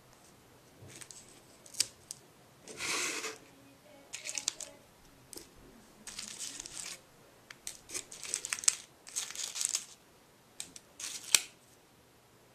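Aluminium foil crinkling and small kit items rustling in short bursts as they are handled over a metal Altoids tin, with a few sharp clicks between them.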